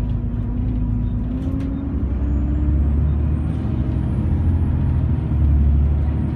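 Alexander ALX400 double-decker bus driving along, heard from the upper deck: a steady low engine and road rumble that swells near the end. A faint high whine rises from about two seconds in.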